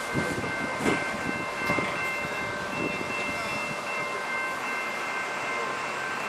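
Level crossing warning signal sounding a steady high tone with the barrier down, with a few knocks in the first three seconds.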